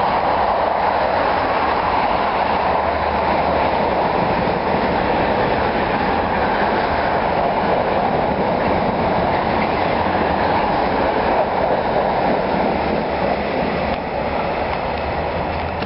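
Train passing through a station at speed: a steady, loud rush of wheel and rail noise that eases off about fourteen seconds in as the train clears.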